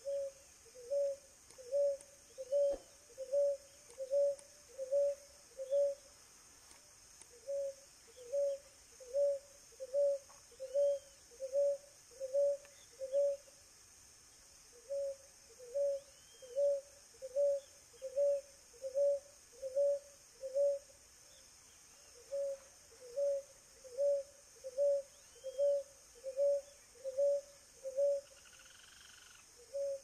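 Ruddy ground-dove (Columbina talpacoti) cooing: a long series of short, evenly spaced low coos, about one and a half a second, in runs broken by brief pauses.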